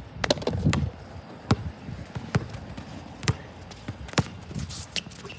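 Basketball being dribbled on an outdoor hard court, bouncing about once a second with sharp slaps.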